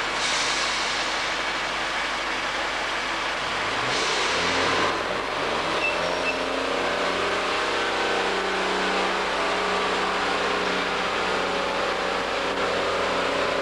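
Class 142 Pacer diesel railbus's underfloor diesel engines working as the unit pulls away from the platform. Short hisses come near the start and about four seconds in. The engine note then rises in pitch for a few seconds and settles into a steady drone.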